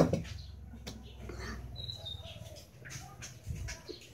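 A bowl set down on a tabletop with one sharp knock, followed by faint small clicks and a brief high bird chirp about two seconds in.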